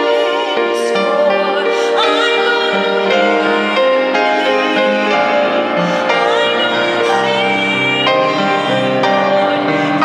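A woman singing a slow song with vibrato, accompanied by an upright piano.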